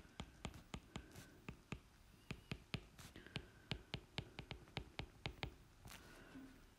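Quiet, quick taps and clicks of a pen tip on the writing surface while words are handwritten, about four or five a second and uneven, with a faint hiss now and then.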